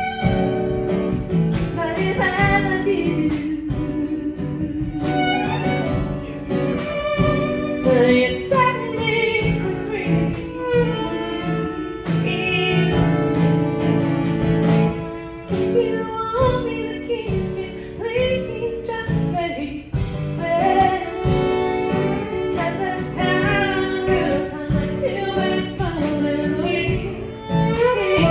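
Live acoustic band in the key of D: a woman singing over strummed acoustic guitar, with a fiddle playing along and a drum kit keeping time.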